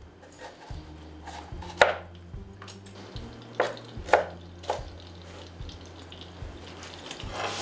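Knife cutting bell pepper on a cutting board: a handful of separate, irregularly spaced cuts, the sharpest about two seconds in and a cluster near the middle.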